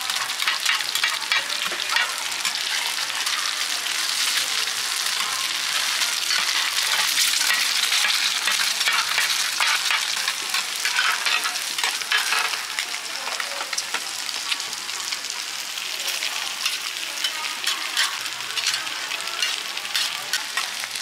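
Mussel omelette frying in oil on a large round flat pan: a steady loud sizzle, with metal spatulas scraping and tapping against the pan in frequent sharp clicks.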